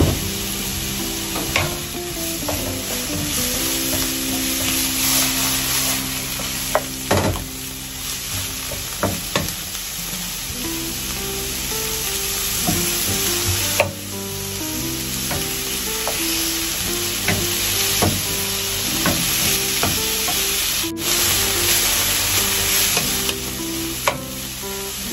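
Broccoli sizzling in a hot non-stick frying pan as a wooden spatula stirs and scrapes through it, with scattered sharp knocks of the spatula against the pan. Soft background music with a simple stepped melody plays underneath.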